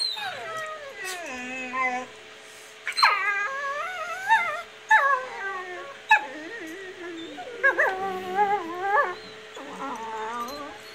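Young dogs play-fighting on a bed, one giving a run of about five long, wavering whining and howling calls, each a second or two long with short breaks between.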